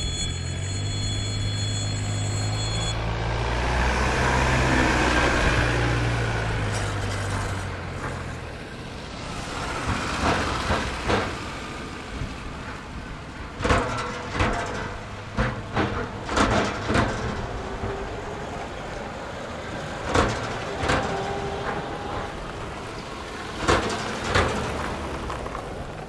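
Road vehicles crossing a railway level crossing: engines running low, then repeated sharp knocks as tyres bump over the rails, from about ten seconds in. The crossing's warning signal rings at the start and cuts off about three seconds in, as the barrier lifts.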